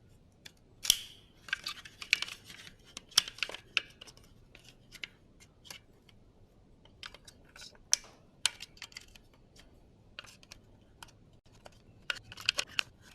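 Irregular sharp metal clicks, ticks and scrapes of a tool working at the retaining clip that holds a Toyota Hilux door lock barrel inside the door. The clicks come in a denser cluster near the end.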